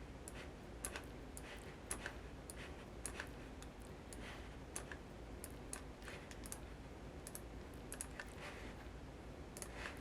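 Faint, irregular clicking of a computer keyboard and mouse being worked.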